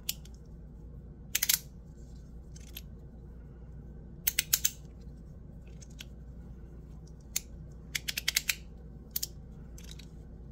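Ti Rhythm titanium fidget toy being worked by hand: sharp clicks, some single and some in quick runs of three to five, as its magnet-held parts are pushed and snapped.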